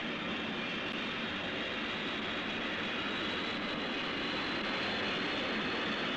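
Twin Rolls-Royce Avon jet engines of a de Havilland Sea Vixen running steadily as the fighter taxis on the carrier deck with its wings folding.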